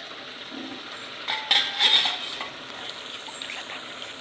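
Squid gravy sizzling in a pan in the water the squid has released, as a spoon stirs it, with a few clinks and scrapes of the spoon against the pan a little over a second in.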